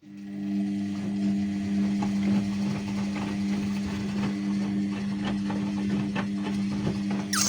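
Ariston washing machine starting up after a silent pause: a steady electric motor hum, with irregular clicks and knocks from inside the machine.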